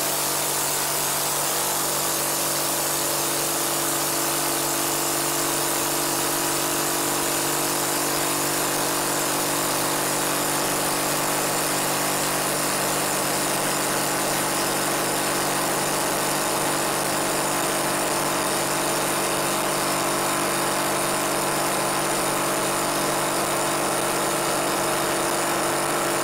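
Air compressor pump converted to a vacuum pump, running steadily while it pulls a vacuum on an air compressor tank toward 25 inches of mercury.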